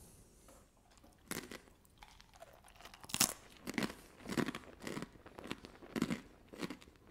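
Close-up crunching of a person chewing roasted puffed-grain star snacks (beetroot Crunchies of corn, jowar and ragi). A first crunch comes about a second in, then steady crunchy chews a little under twice a second.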